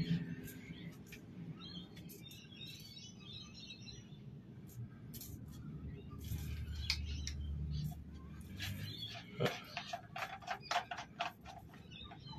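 Plastic clicks and taps from a Rule Lo Pro bilge pump being handled as its housing and outlet barb are fitted together. The clicks become a quick run of clicks and rattles over the last few seconds.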